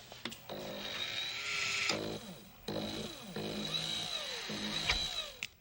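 Whirring, whining servo-motor sound effects of a robot android moving, in two runs with pitches that slide down and up over a steady high whine.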